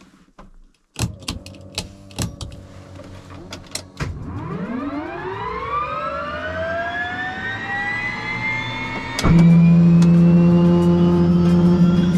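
Bell 206 helicopter's Allison 250 turbine engine being started: a few clicks, then from about four seconds in the starter whine rises and levels off. About nine seconds in a sharp click is followed by a step up to a louder steady hum.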